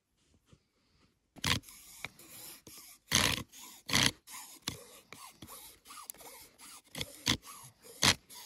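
Wooden bow drill being sawn back and forth: the spindle scrapes and squeaks in the hearth board between several sharp wooden knocks, after a quiet first second. The stick bow is too flexible to grip the spindle, so the drill only spins one way and slips.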